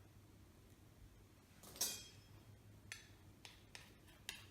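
A spoon clinking and scraping against a jar while scooping out almond butter: one clearer clink with a short ring a little under two seconds in, then a few faint ticks.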